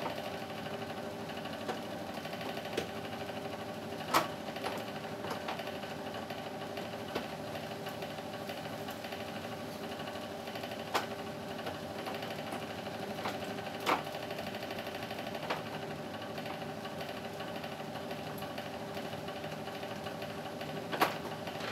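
A steady electric motor hum with a fine, fast rattle, with scattered sharp clicks of plastic and metal as the air conditioner's front casing and screws are worked by hand.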